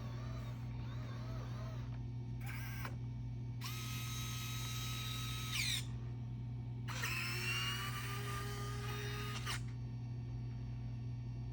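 Small electric motors of a Roborock Saros Z70 robot vacuum whining in three bursts over a steady low hum. Each burst starts and stops abruptly, the longest about two seconds, and the pitch glides within the later bursts.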